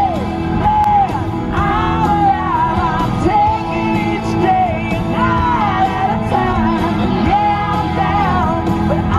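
A pop song with sung vocals and a steady beat, with a woman singing along loudly over it.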